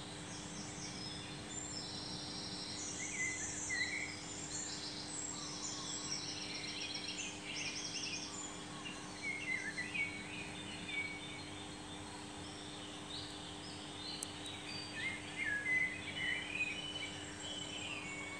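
Small birds chirping and trilling in the background, with short rising and falling calls and quick rattling trills, over a steady low hum.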